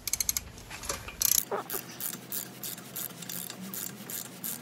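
Ratchet wrench clicking in short, even strokes, about three a second, as the clutch bolt is tightened, with a quick cluster of sharper clicks at the start.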